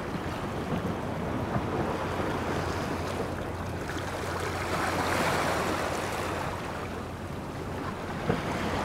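Waves washing and lapping at the water's edge, rising and easing in a slow swell, with wind buffeting the microphone.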